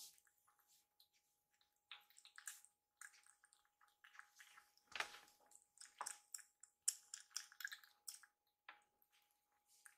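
Two kittens eating from ceramic bowls: faint, irregular wet smacks, licks and small clicks of their mouths in the food, now and then a slightly louder click against the bowl.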